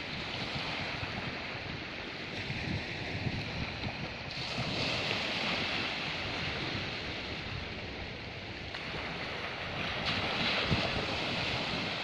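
Sea waves washing on the shore, swelling twice (about four seconds in and again near the end), with wind buffeting the microphone.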